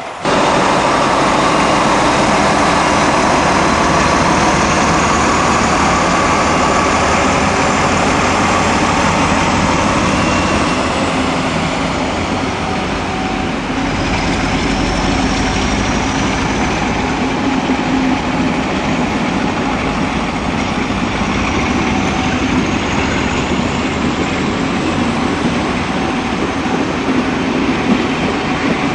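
Class 47 diesel locomotive's engine running as it moves slowly past hauling a rake of coaches: a steady loud drone of engine and rolling stock.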